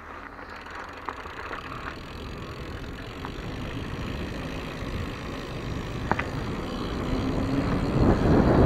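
Mountain bike rolling downhill on an asphalt lane: tyre rumble and wind buffeting the handlebar camera's microphone, growing steadily louder as the bike picks up speed, with a couple of small clicks.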